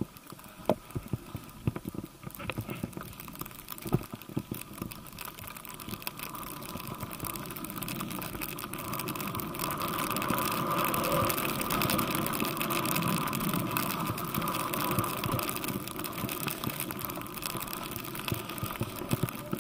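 Skis sliding over snow with the rush of air past the skier, a steady hiss that grows louder as the skier picks up speed, with a few sharp clicks in the first few seconds.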